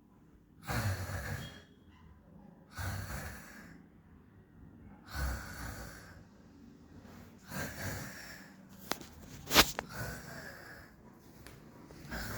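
A person snoring, four rasping snores about two and a half seconds apart. A few sharp clicks come about three quarters of the way through, the loudest sound here.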